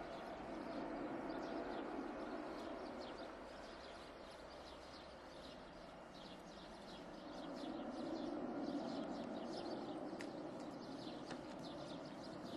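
Distant jet roar of an Airbus A320-211's CFM56 turbofans at take-off power as the airliner climbs away, easing off for a few seconds and then swelling again from about halfway in. Birds chirp throughout.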